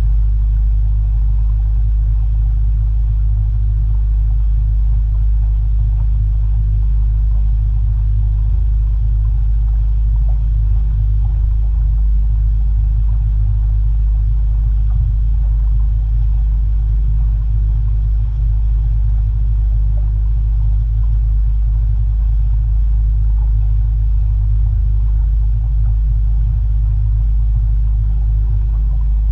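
Motorboat engine running at slow, even cruising speed: a steady deep rumble.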